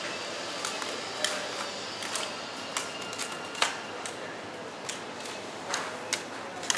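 Supermarket ambience: a steady background hum with irregular sharp clicks and light clatters, about a dozen in all.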